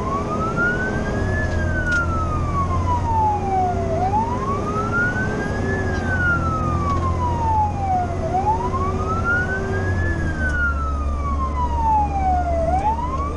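Fire engine's Federal Q mechanical siren in a slow repeating wail, about every four seconds: it winds up quickly, then coasts down more slowly. Under it runs the truck engine's steady low drone, heard from inside the cab.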